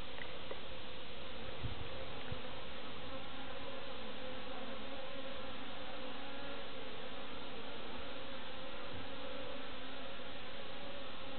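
Honeybees buzzing steadily in flight around the hive entrance: a colony stirring in its first activity after winter.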